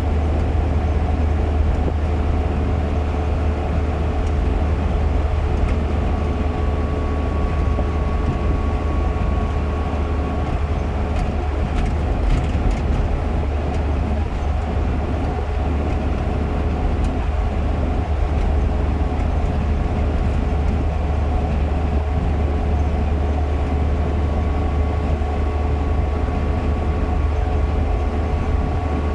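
Steady engine and road noise inside a moving car's cabin, a deep rumble with a thin steady hum over it.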